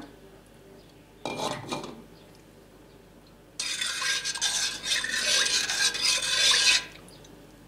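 A metal spoon stirring warm soy milk in a stainless steel pot, scraping against the pot for about three seconds: nigari coagulant being stirred in to separate curd from whey. A short splash about a second in, as the nigari solution is poured from a small glass bowl.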